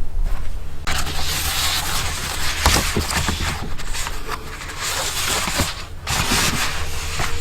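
Irregular rustling and scraping, with a few light knocks, setting in about a second in over a low steady hum.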